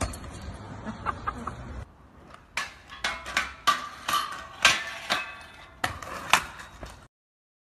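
Stunt scooter riding on pavement: a run of sharp clacks and knocks as the deck and wheels land and strike a metal grind rail, some with a short metallic ring. The sound cuts off to silence about seven seconds in.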